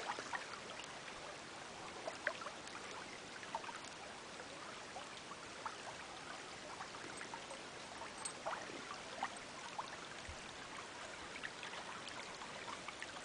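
Shallow creek flowing steadily, a faint even rush of water with many small scattered drips and splashes.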